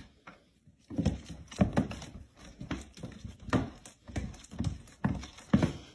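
Cats' paws thumping on a hardwood floor as two cats bat a small toy back and forth between them. The knocks come two or three a second, starting about a second in.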